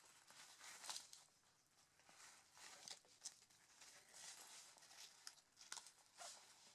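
Faint rustling and scuffing of a nylon waist pack's fabric and mesh back panel as it is turned over and handled, with a few sharp little clicks.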